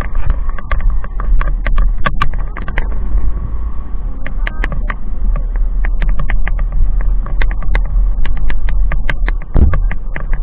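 Motorcycle running as it is ridden along a road: a steady low rumble with frequent sharp clicks and knocks over it.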